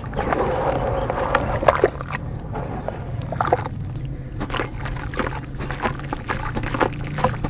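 Dirt crumbling and crunching in water: an irregular run of crackles and small wet splashes over a steady low hum.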